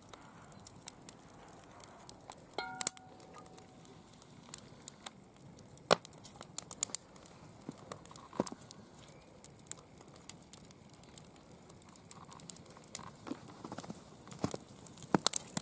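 Wood fire crackling with scattered sharp pops, and a short metallic ring about three seconds in.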